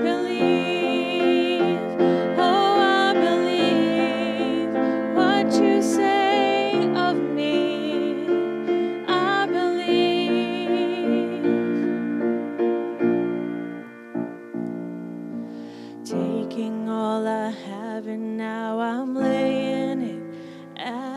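A solo singer with vibrato, accompanied by piano, performing a slow worship song. The music thins out and softens about two-thirds of the way through, then the voice comes back in.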